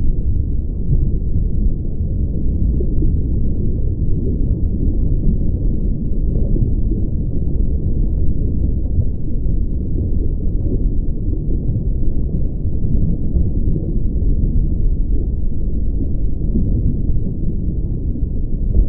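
Steady, muffled low rumbling noise with nothing high in it, an underwater-style ambience sound effect.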